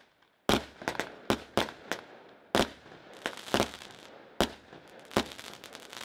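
A 92-shot Columbus firework cake firing: about a dozen loud bangs in quick, irregular succession, with dense crackling between them as the stars burst.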